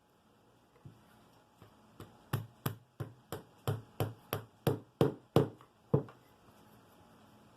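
A run of sharp taps, about three a second, getting louder toward the end: small 1/8 in dowel pins being tapped into layered Baltic birch plywood parts.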